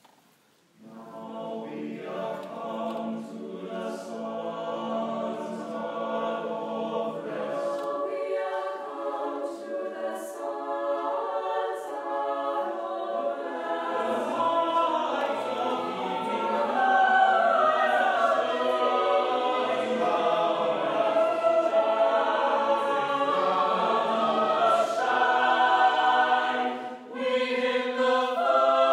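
Mixed choir of men's and women's voices singing unaccompanied in several parts. The singing comes in just after a brief rest at the start, grows louder about halfway through, and pauses briefly near the end before continuing.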